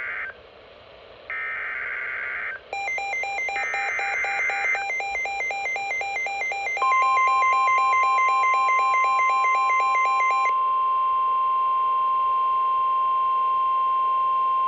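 Emergency Alert System header and alarm: three short buzzing digital data bursts, then a rapidly alternating two-pitch warbling alert tone. About seven seconds in, a steady single-pitch alert tone joins it and carries on alone after the warble stops about ten seconds in.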